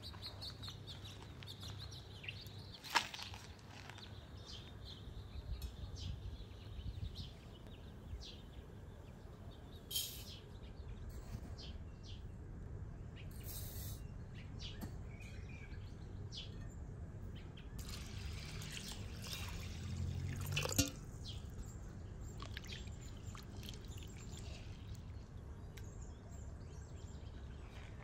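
Rice being scooped and poured into an enamel bowl, with a few sharp clinks of the scoop against the bowl, then water poured in to wash the rice, a rising rush that stops abruptly. Birds chirp faintly in the background.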